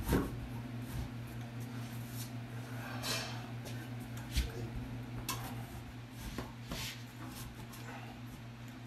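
Ceramic toilet tank being handled on its bowl: a few scattered light knocks and short scrapes of porcelain, the sharpest right at the start, over a steady low hum.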